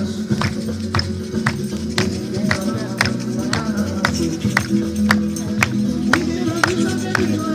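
Music with a steady percussive beat of about two strikes a second over sustained low held tones.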